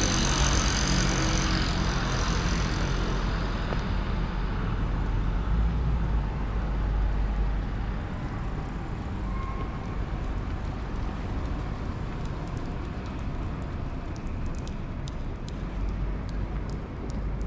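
Street traffic. A vehicle passes close by at first, with a deep rumble and a high whine, and fades away over the first few seconds, leaving a steadier, quieter hum of road traffic.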